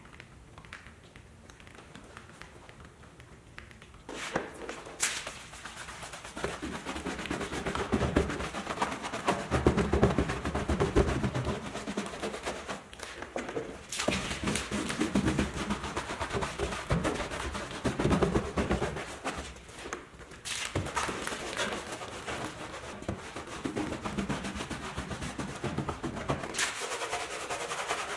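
Tire brushes scrubbing a foam-soaked truck tire and plastic wheel-well liner: rough, rapid scratching in bouts with short pauses between them. It is faint for the first four seconds.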